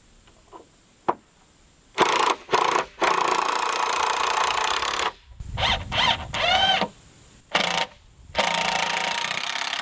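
Cordless impact driver driving screws into 2x6 framing lumber: two short bursts, then a sustained run of about two seconds. After a break come another short burst and a long run near the end.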